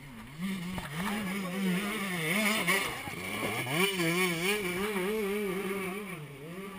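Enduro motorcycle engine under load on a steep dirt climb. Its note rises and falls again and again as the throttle is worked, and is loudest in the middle.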